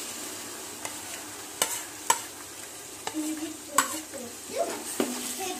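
Ginger-garlic paste and sliced shallots sizzling in hot oil in a large metal pot as they are stirred with a metal spatula. The spatula knocks sharply against the pot a few times.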